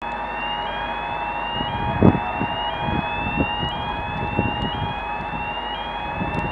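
A siren-like electronic tone that rises in pitch and starts over about once a second, repeating steadily, over a steady hum and low rumbling noise, with a thump about two seconds in.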